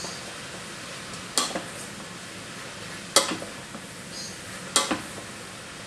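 Sliced mushrooms and shallots sizzling steadily in butter in a stainless steel pot on high heat while being stirred, with a utensil knocking sharply against the pot three times.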